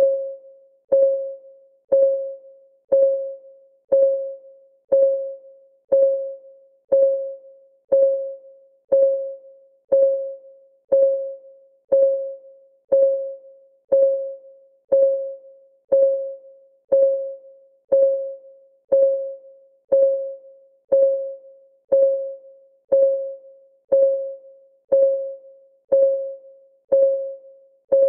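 Countdown timer's clock tick, once a second, steady and even. Each tick is a short click with a brief pitched ring that dies away quickly.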